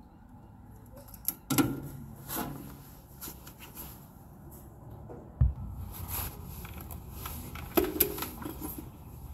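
A few sharp clicks and knocks of hand-tool work inside the open sheet-metal cabinet of a heat pump water heater, with a sharp low thump about halfway through.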